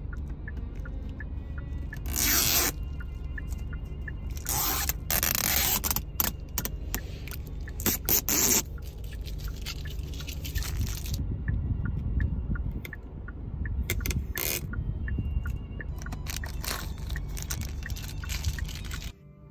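Factory protective plastic film being peeled off car interior trim: crackling, rasping rips in several separate pulls, the loudest about two seconds in, around five seconds and around eight seconds, with small clicks between them. A steady low hum runs underneath.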